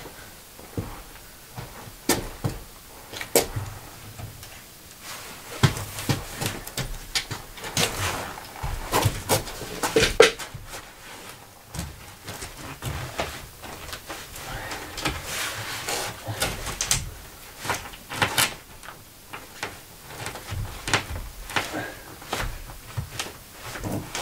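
Irregular knocks, taps and scrapes of a sheet of OSB board being handled and pushed into place against a wooden stud wall.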